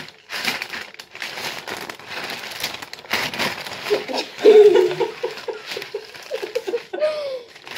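Sticky marshmallow-coated popcorn being scraped off a spoon with a knife, crinkling and crackling with small clicks of the metal utensils. About halfway through, a girl laughs in a quick run of short laughs.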